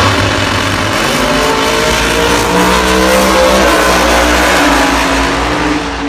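Drag-racing V8 engine launching with a loud blast, then its note climbing in pitch in steps as it accelerates through the gears down the strip, easing off near the end.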